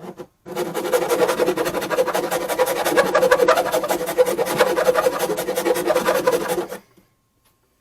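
Power driver running in one continuous stretch of about six seconds with a rapid rattle, tightening a fastener, then stopping abruptly.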